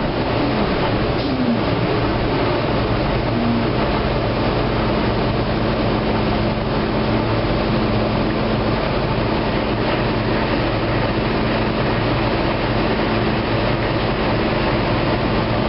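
NABI LFW low-floor transit bus heard from inside the passenger cabin while riding: a steady engine and road rumble. A whine wavers up and down in pitch over the first few seconds, then holds steady.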